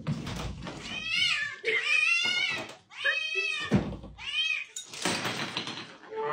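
Two young cats meowing loudly and insistently, about four drawn-out meows that slide in pitch, while food bowls are carried to them: hungry cats begging to be fed.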